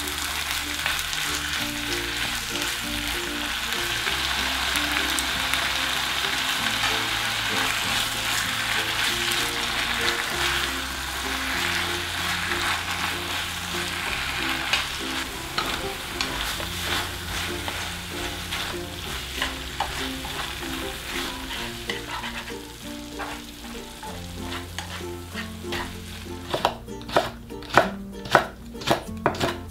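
Food sizzling as it fries in a pan while being stirred, a steady hiss that fades after about twenty seconds. Near the end comes a quick run of sharp taps.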